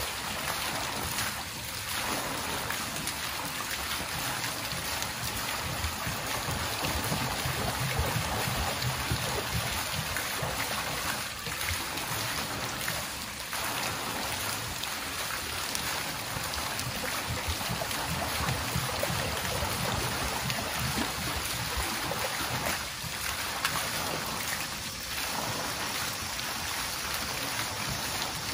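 Water falling and splashing in a continuous, steady stream, with no single drops standing out.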